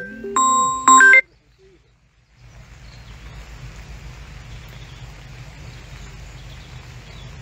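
A short glockenspiel-like mallet-percussion jingle of a few bright notes cuts off abruptly about a second in. After a brief silence, a steady outdoor hiss with a low hum beneath it begins.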